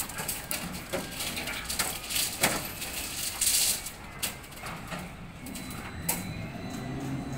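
Chain slings and a hanging bundle of steel rebar clinking and knocking as a crane lowers the load onto a flatbed trailer, with a short hiss about three and a half seconds in. A low engine drone builds through the second half.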